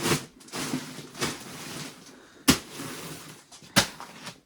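Indoor handling noise: an uneven rustling with two sharp knocks, the first about halfway through and the second just over a second later.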